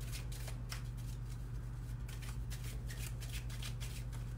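A deck of tarot cards being shuffled by hand: a quick, continuous run of soft card clicks and slides, over a steady low hum.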